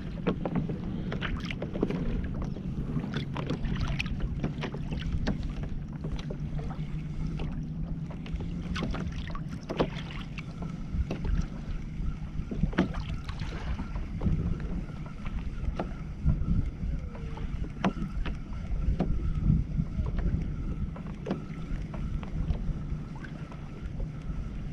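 Wind noise on the microphone of a camera mounted on a kayak at sea, with water against the kayak hull and scattered small clicks and knocks.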